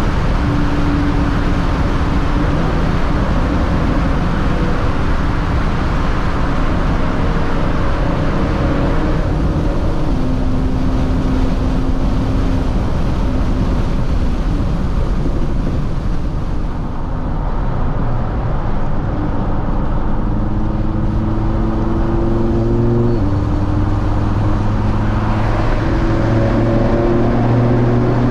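Audi TT RS's turbocharged five-cylinder engine droning inside the cabin at expressway speed, under steady tyre and road noise. The engine note climbs gradually, drops suddenly about two-thirds of the way through, then climbs again.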